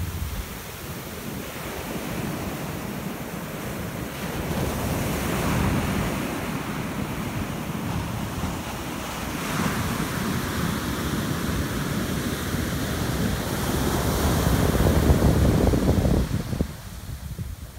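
Ocean surf breaking and washing up the beach in repeated surges, with wind rumbling on the microphone. Loudest a little before the end, then dropping off suddenly.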